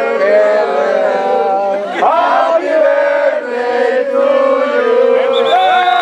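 A crowd of people chanting together in long held notes, loud throughout, with a fresh burst of voices about two seconds in.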